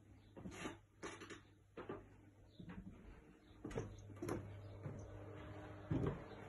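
Irregular footsteps and soft knocks of a person walking through the rooms of a house, with a louder thump near the end, over a low steady hum.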